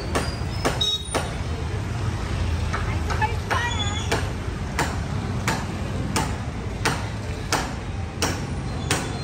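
Sharp knocks at a very even rate, about three every two seconds, over a steady low rumble, with voices in the background.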